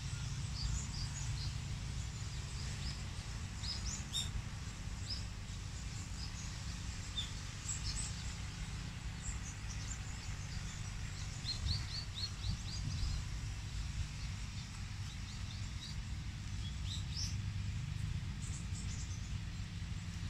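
Small birds chirping in short, high calls that come in scattered clusters, over a steady low rumble of outdoor background noise.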